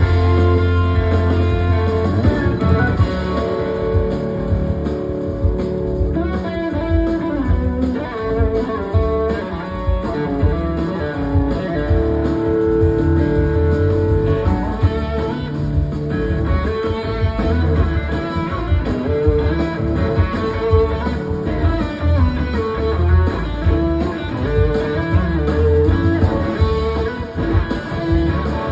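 Electric guitar solo played live through amplifiers, a melodic line with some gliding notes, over the band's bass and drums.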